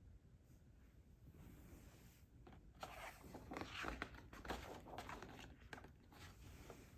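Faint papery rustling and crackling of a hardcover picture book's page being turned by hand and smoothed flat. It starts about two seconds in and dies away shortly before the end.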